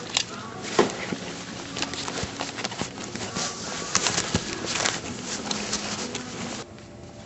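Scattered clicks, knocks and rustling, with no air horn sounding. About six and a half seconds in, the noise drops to a low background.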